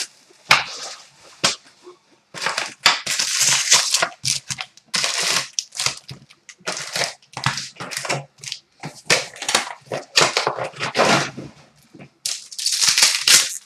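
Plastic shrink wrap crinkling as it is torn and crumpled off a cardboard trading card box, then the box flap opening and foil card packs being handled and stacked, in irregular rustling bursts.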